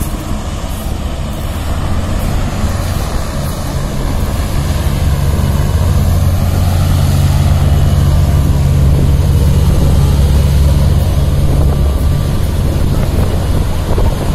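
A Griffon 12000TD hovercraft running its ducted propellers and lift fans as it comes ashore: a loud, steady low drone that grows louder from about two seconds in and is loudest past the middle as the craft climbs onto the beach.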